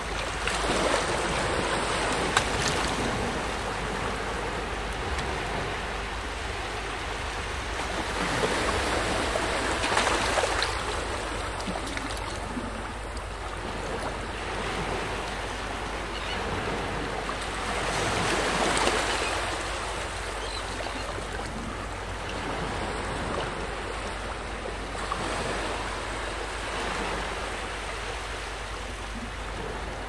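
Small waves breaking and washing up onto a sandy beach. The surf rises and falls, with a surge every eight seconds or so.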